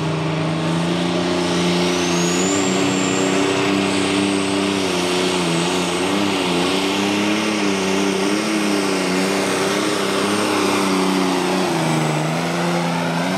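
Ford 9600 pulling tractor's diesel engine running hard under full load while it drags the sled, its note wavering up and down. A high whistle rises about two seconds in and then holds.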